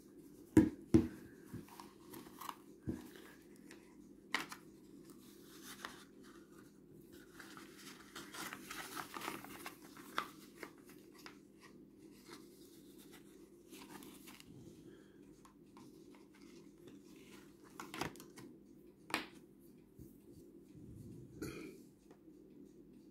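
Hands unboxing a Bluetooth speaker and handling its packaging: scattered knocks and clicks, the loudest two just after the start, with a stretch of rustling around the middle. A steady low hum runs underneath.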